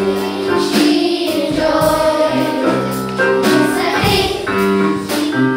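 Children's school choir singing together in held notes that move from pitch to pitch.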